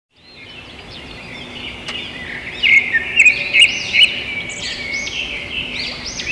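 Small songbirds chirping at dawn, many short whistled notes and chirps overlapping. The chorus fades in at the start and is busiest and loudest a few seconds in.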